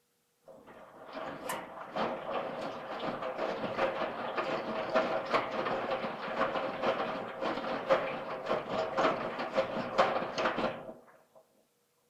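Washing machine drum turning for about ten seconds during a wash cycle, with irregular knocks and clatter over a steady hum. It starts about half a second in, fades out near the end, and is quiet on either side: one tumble phase between pauses.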